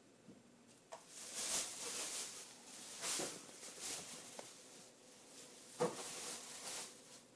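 Rustling and scuffling of a cat wrestling and chewing a feather wand toy on carpet. It comes in irregular bursts, with a sharp click about a second in and another about six seconds in.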